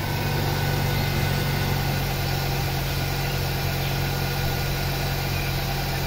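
Car engine idling steadily with the AC compressor running, its newly fitted magnetic clutch and pulley spinning smoothly with no rough or noisy bearing sound: normal running after the repair.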